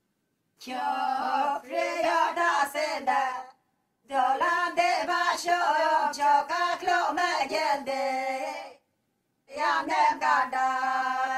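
Unaccompanied folk singing, in three phrases with short silent breaks between them.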